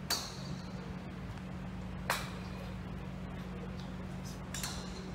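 Golf club heads striking balls off driving-range mats: two crisp clicks about two seconds apart with a brief ring, and a fainter third click near the end.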